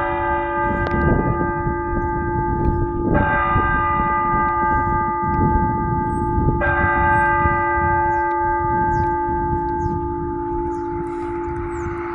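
A single church bell tolling slowly. It is struck about every three and a half seconds, each stroke ringing on under the next. There are three strokes, and the last one fades out.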